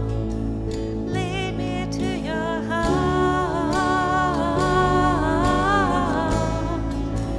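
Church worship band music: a singer holding a wavering melody over sustained chords from the band.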